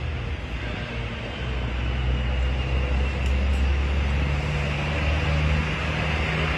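A vehicle engine running nearby, a steady low hum over street noise, its pitch stepping up slightly about four seconds in.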